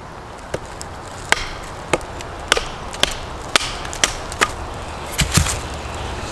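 Wooden baton striking the spine of a Kephart XL knife, driving the blade down through a stick of fatwood to split it: about ten sharp knocks, roughly two a second, the heaviest pair near the end.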